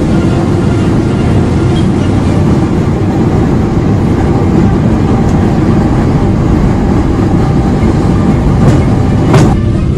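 Jet airliner engine noise: a loud, steady low rumble, with a brief louder knock near the end.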